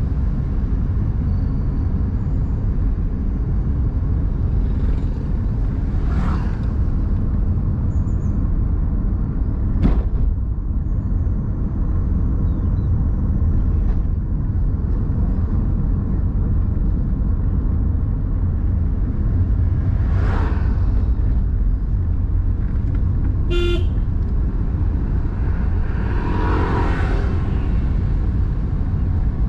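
Steady low rumble of a car driving on a paved road, heard from inside the car. There is a single knock about a third of the way in, a brief horn toot a little past two-thirds, and a longer pitched honk near the end.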